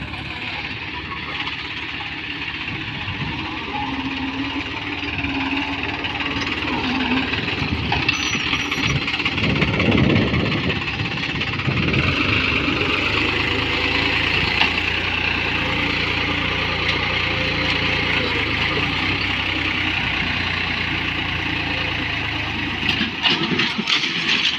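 Tractor diesel engine running steadily under ploughing load, getting louder about ten seconds in.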